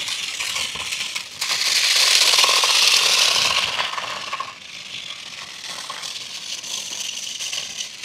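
Toy RC car's small electric motors and plastic gearboxes whirring as it drives, with its wheels and plastic body rattling on a hard floor. The sound swells about a second and a half in, holds for about two seconds, then drops back to a quieter whir.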